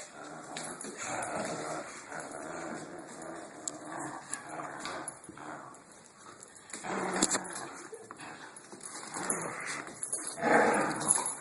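Two dogs, a Korean Jindo and a dachshund–papillon mix, growling in play while they tug against each other, in rough bursts that come and go and are loudest near the end.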